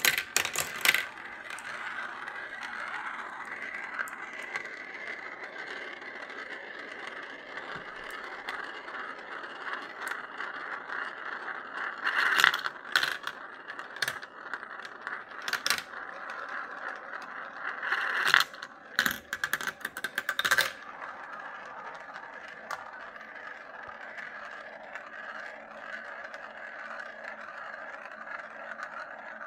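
Glass marbles rolling down a plastic marble run: a steady rolling rattle that starts suddenly, broken by sharp clacks as marbles drop and knock against the plastic pieces, with several bunches of clacking in the middle.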